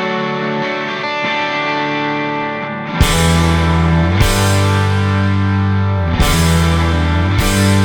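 Background rock music with guitar: a quieter guitar passage, then about three seconds in a heavier section with loud bass and drum hits comes in.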